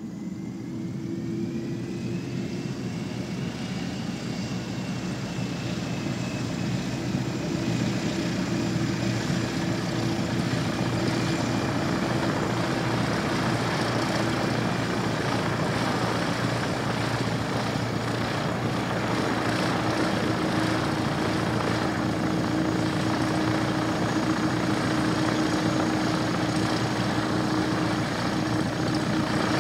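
Airbus A330's jet engines running on the ground. A whine rises in pitch as the sound grows louder over the first several seconds, then settles into a steady whine and rumble.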